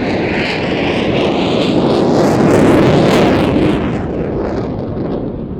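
F-16's Pratt & Whitney F100 turbofan running at high power in slow flight, its engine power alone holding the jet's altitude. The noise swells to its loudest about three seconds in, then fades as the high end drops away when the jet moves off.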